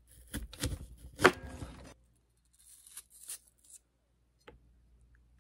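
Kitchen knife cutting a small apple on a cutting board. It makes a run of crisp crunching cuts and knocks of the blade in the first two seconds, the loudest about a second in. Fainter scraping cuts follow, then a single click near the end.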